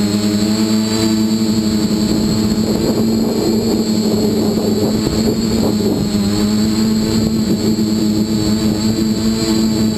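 Dead Cat 450 quadcopter's motors and propellers running with a steady, even-pitched hum, heard from the camera on board; the sound turns rougher and more unsteady for a few seconds in the middle.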